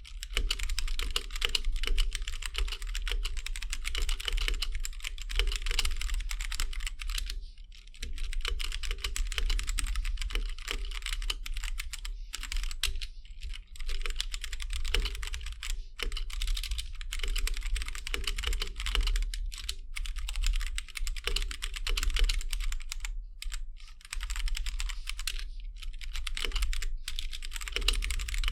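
Fast continuous typing on a Gamakay K87 mechanical keyboard with Gateron Brown tactile switches and stock keycaps and stabilizers, a dense patter of keystrokes broken by a few short pauses.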